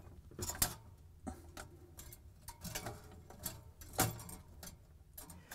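Light, irregular clicks and taps of needle-nose pliers and fingers on the metal tabs and tubing of a refrigerator evaporator bracket as a new defrost heater is secured under the tabs.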